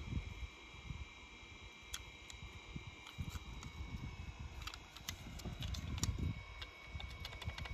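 Faint handling noise of a small toy truck being turned in the hand: scattered light clicks and low rubbing, with a faint steady high tone behind.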